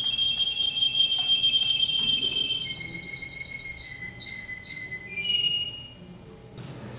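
Male canary singing: a long, steady, high rolling trill, then a faster pulsed trill higher up over a lower held note, and a few short phrases, with the song breaking off about half a second before the end.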